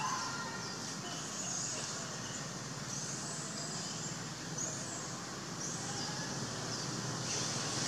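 Outdoor forest ambience: a steady noisy background with short high chirps every second or so. A high, even hiss-like buzz comes up near the end.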